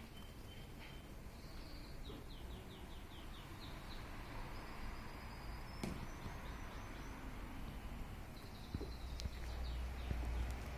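Small birds chirping in short series of quick high notes over a steady low background rumble.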